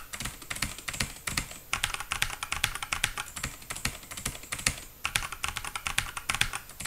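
Fast typing on a mechanical keyboard with blue switches: a dense run of keystroke clicks, with short pauses about two seconds in and again about five seconds in.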